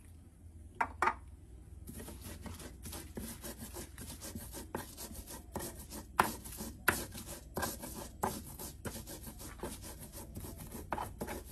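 Pestle rubbing and grinding in a mortar in quick repeated strokes, after two knocks about a second in.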